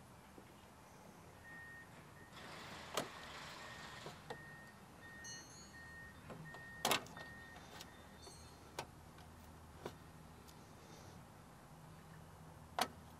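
About seven faint, sharp plastic clicks spread over the seconds as the retainer tabs holding a Toyota Tacoma's front bumper are pried out one by one. A faint, evenly spaced beeping at a single pitch sounds for several seconds near the start.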